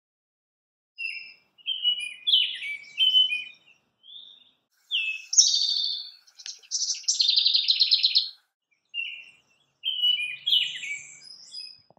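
Songbirds singing: a series of varied whistled phrases with short gaps between them, and a run of rapid repeated notes about seven seconds in.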